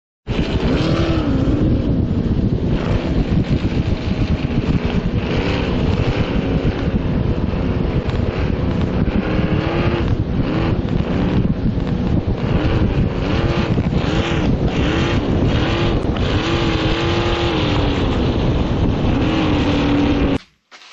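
Turbocharged LS V8 jet boat engine running loud, its pitch rising and falling again and again as it is revved up and down. It cuts off suddenly near the end.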